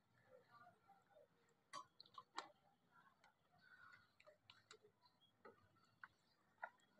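Near silence broken by scattered faint clicks and ticks as pliers and thin electrical wires are handled and twisted together by hand. The sharpest clicks come about two seconds in and again near the end.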